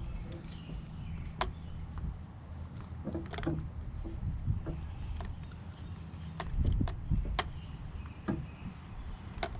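An engine running steadily at a low pitch, most likely the excavator idling, with scattered sharp clicks and knocks from equipment being handled and a louder rumble about seven seconds in.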